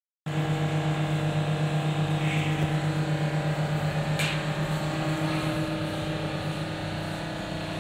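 Steady mechanical hum of machinery running, with a strong low tone, a slight pulsing beat, and a brief sharp click about four seconds in; the hum eases a little in the second half.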